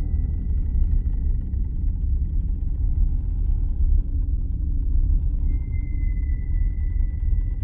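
Low, steady rumbling drone of an end-credits film score, with a thin high tone held above it that fades out and comes back about five and a half seconds in.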